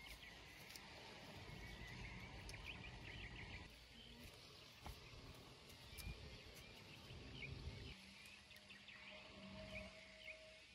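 Near silence: faint outdoor ambience with small birds chirping in quick, high twitters throughout, over a low rumble that drops away about eight seconds in.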